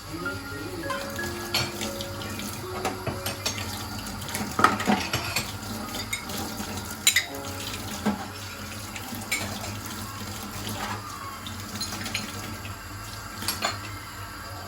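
Water running from a kitchen tap into a sink while dishes and metal utensils are washed, clinking against each other, with the loudest knocks about four and a half and seven seconds in.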